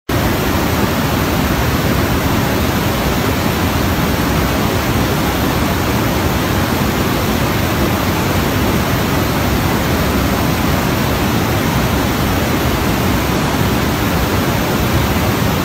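Steady, even rushing noise with no breaks or changes in it.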